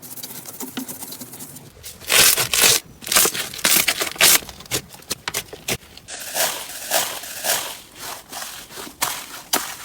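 Slime being squeezed and worked by hand, making dense, irregular crackling and popping clicks. It is faint for about the first two seconds, then turns loud.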